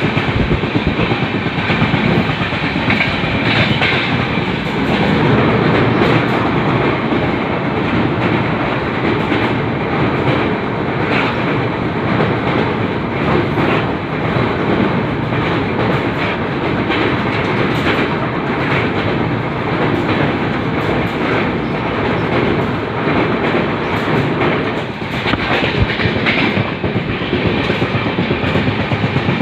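Indian Railways LHB passenger coach running along the track: a steady rumble of wheels on rail, with irregular clicks as the wheels pass over rail joints.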